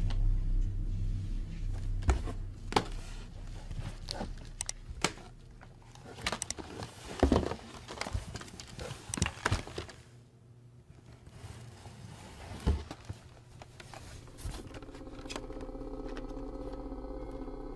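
Rustling, scraping and light knocks of items handled while a cardboard box is unpacked, over a low rumble that fades in the first couple of seconds. A steady low hum comes in about three-quarters of the way through.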